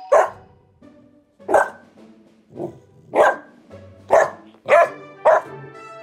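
Golden retriever puppy barking at its own reflection in a mirror: about seven short, sharp barks, roughly a second or less apart, over background music.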